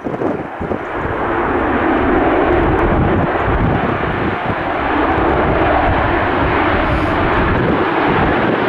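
Ryanair Boeing 737's jet engines at high thrust as it rolls down a wet runway on its takeoff run. The sound swells over the first couple of seconds, then holds as a steady, loud jet noise.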